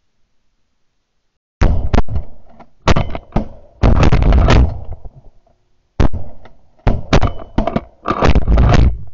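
Shotgun fire from several guns at a flock of ducks: loud shots begin about a second and a half in, come in a quick string with some nearly overlapping, pause briefly, then resume in a second rapid string near the end.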